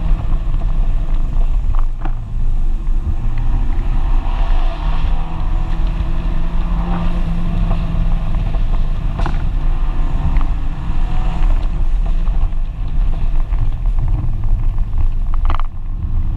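Fiat 124 Spider Abarth's turbocharged 1.4-litre four-cylinder running at speed with the top down, mixed with wind and road noise in the open cabin; the engine note rises and falls a little.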